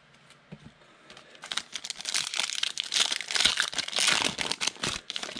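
Foil Donruss football card pack crinkling and tearing as it is handled and opened, a dense rapid crackle that starts about one and a half seconds in and stops just before the end.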